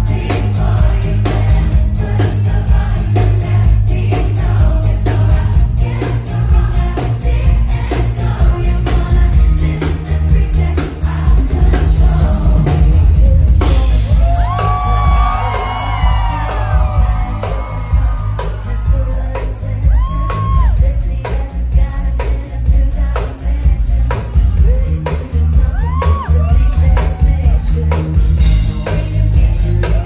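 Live pop music: female vocalists singing into microphones over a band with heavy bass and a steady beat.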